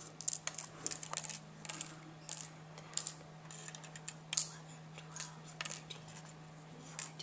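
Small metal paper clips clicking and sliding on a paper mat on a tabletop as they are moved by hand: many light, irregular clicks.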